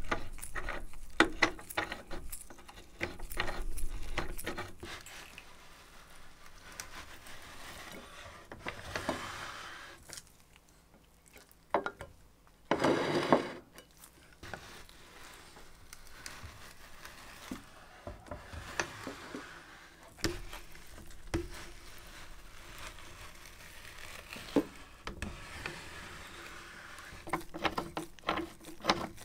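Scattered clicks, knocks and light handling noises of hard parts being set down and worked by hand, with one louder noise about a second long roughly halfway through.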